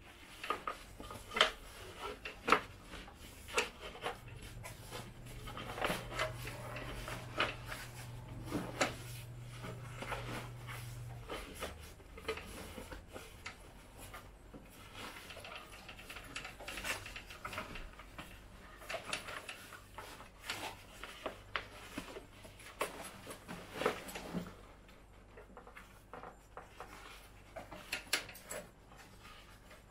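Scattered clicks, knocks and fabric rubbing from a paramotor harness as a foam-padded carbon fiber seatboard is worked into its seat by hand. A low steady hum comes in about four seconds in and stops around eleven seconds.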